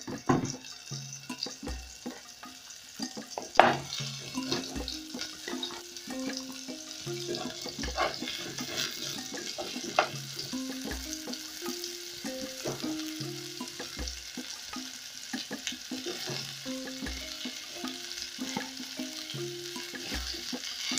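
Flour-coated goat meat sizzling in hot oil in a metal pot as pieces are added and turned for browning, a steady hiss with occasional clicks of metal tongs against the pot.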